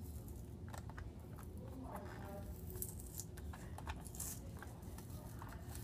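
Faint crinkling and tearing of a Hot Wheels car's cardboard-and-plastic blister pack being pulled open by hand, in scattered small crackles and ticks.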